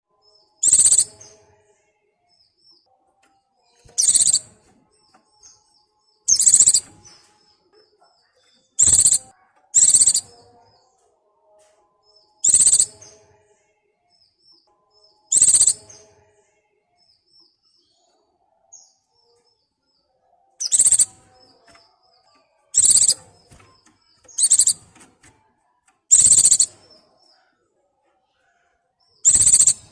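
Pleci (white-eye) in breeding condition calling for a mate: about a dozen short, loud, high-pitched calls spaced two to three seconds apart, with faint soft twitters between them.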